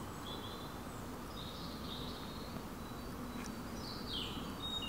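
Woodland ambience: small birds singing with short high chirps and a falling phrase about four seconds in, over a steady low background rush.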